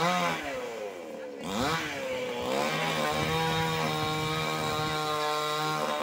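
Two-stroke chainsaw revving down and up twice. From about two and a half seconds in it is held steady at high revs, as when cutting, and it begins to drop away right at the end.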